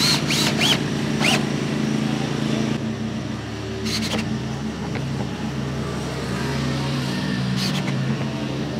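A motor runs with a steady low drone that shifts in pitch about three seconds in. A few short high squeaks come near the start, and a single sharp click about four seconds in.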